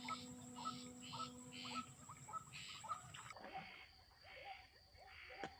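Faint rhythmic animal calls from the swamp: short rising notes about twice a second, over a steady high whine. There is a single sharp click near the end.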